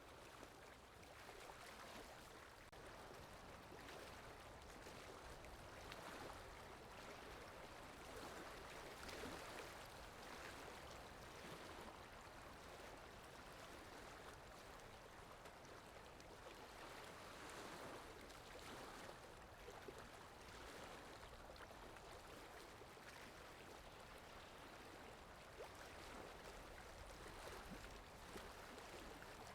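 Faint, steady rain falling, an even hiss with slow gentle swells in strength.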